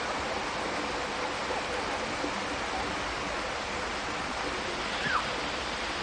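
Steady rushing water, with one short high falling chirp about five seconds in.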